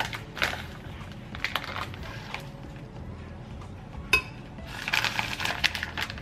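A metal spoon scraping and clinking as powdered chocolate is scooped from a paper packet and tipped into a blender jar, with the packet rustling. One sharp clink about four seconds in, then a denser run of scraping and rustling near the end.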